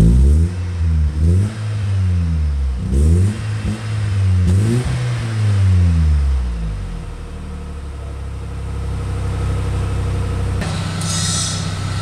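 Exhaust of a GM 2.0-litre four-cylinder (C20NE) engine through a JK sport muffler with twin tips. The throttle is blipped about five times, each rev rising and falling quickly, then the engine settles to a steady idle.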